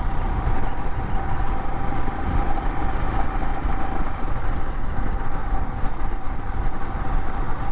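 Royal Enfield Himalayan's single-cylinder engine running steadily while the motorcycle cruises, with a dense low rumble of wind and road noise on the camera microphone.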